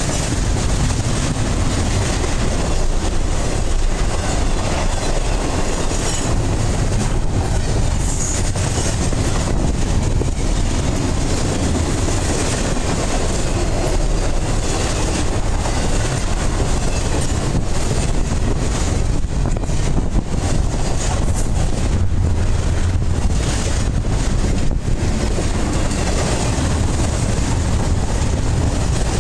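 Loaded double-stack intermodal well cars rolling past close by: a steady, loud noise of steel wheels running on the rails.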